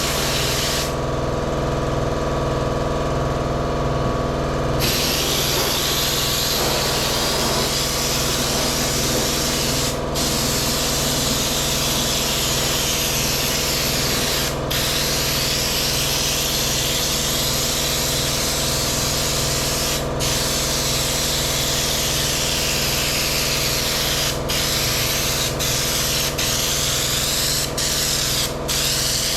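Air spray gun spraying Raptor bedliner with a steady hiss. The spray stops about a second in, resumes about five seconds in, then breaks off briefly several times as the trigger is let go. A steady mechanical hum, such as an air compressor, runs underneath.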